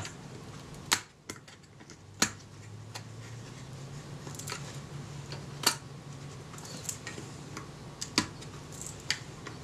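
Small sharp clicks and light taps from hands working the parts of an old box camera as its shutter assembly is freed. There are four louder clicks a couple of seconds apart, with fainter ticks between them, over a faint low hum.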